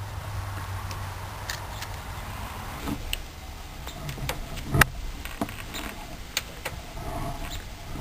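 Screwdriver working a stripped screw on a small-engine breaker-points cover: scattered sharp metal clicks as the tip slips in the screw head, the loudest about five seconds in, over a steady low hum.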